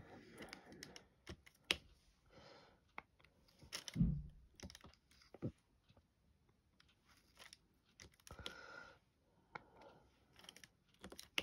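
Quiet, scattered clicks and taps of diamond painting: a drill pen picking up and pressing resin drills onto the sticky canvas, with a few short rustling stretches and one duller knock about four seconds in.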